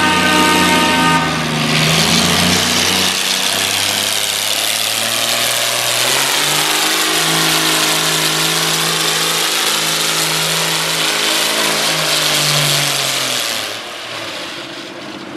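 Farmall 560 tractor's engine running hard under load as it pulls a weight-transfer sled, with a loud roar over the engine note. The pitch climbs about six seconds in, holds high, then falls off and the sound drops near the end.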